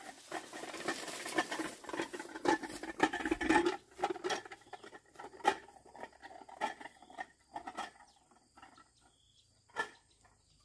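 Light tapping and knocking, close together and louder for the first four seconds, then thinning out to scattered clicks.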